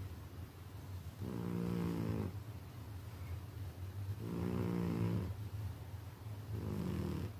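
Slow, pitched snoring: three drawn-out snores, each about a second long and two to three seconds apart, over a steady low hum.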